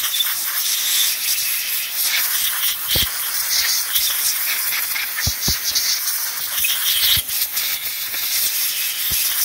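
Compressed-air blowgun hissing steadily as it blows packed sawdust and debris out of an Echo CS-310 chainsaw's clutch and bar-mount area, the hiss wavering as the nozzle is moved around. A few low thumps sound in the middle.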